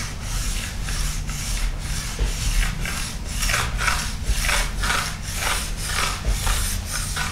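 An oiled SWIX edge stone in an aluminium base-edge guide rasps back and forth along a ski's steel base edge, about two to three strokes a second, with pressure kept on in both directions. The grating is the stone cutting the burr off the edge.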